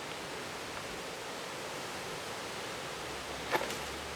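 Steady wind noise outdoors, with a faint short knock about three and a half seconds in.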